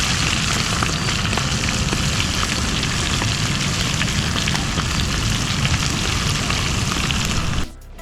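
Quail pieces deep-frying in hot oil: a dense, steady sizzle full of fine crackles and pops. It cuts off suddenly near the end.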